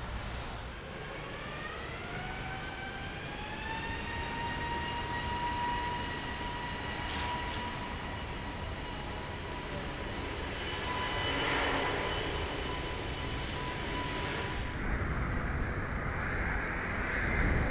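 Airbus A320neo jet engines (CFM LEAP-1A) spooling up for takeoff: a rising whine that levels off into a steady whine over a low rumble. Near the end the whine cuts off and a broader rushing jet noise takes over.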